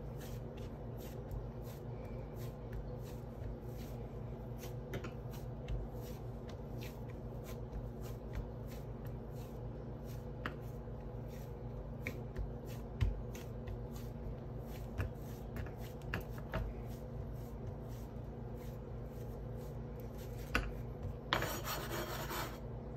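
Hands pressing and smoothing shortcake dough flat on a floured wooden cutting board: soft rubbing with faint scattered taps, then a brief louder rasp about a second before the end. A steady low hum runs underneath.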